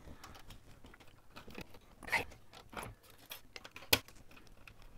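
Scattered light clicks, taps and small rattles of a screwdriver and small screws being worked on a hard-drive tray, with one sharp click near the end.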